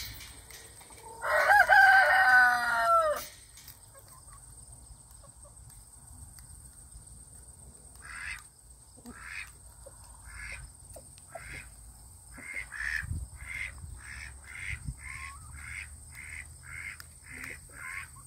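A rooster crows once, about a second in, for about two seconds. From about eight seconds in, a chicken clucks in a steady repeated rhythm that quickens to about two clucks a second.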